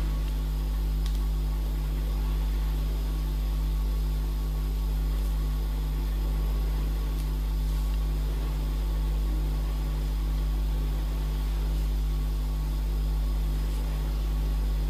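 Steady low electrical hum, loud and unbroken, over a constant hiss, with a few faint soft clicks.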